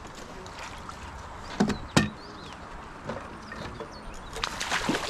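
Two sharp knocks about half a second apart, the loudest sounds here, followed near the end by a patter of lighter clicks.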